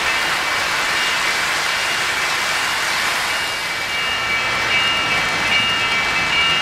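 O-gauge model trains running on three-rail track: a steady rushing noise of wheels and motors. Faint high steady tones come and go from about four seconds in.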